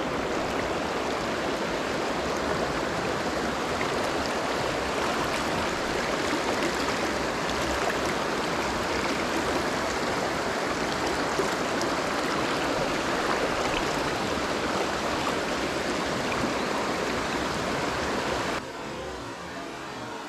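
Mountain stream rushing steadily over rocks. About eighteen seconds in the water sound drops abruptly to a quieter level.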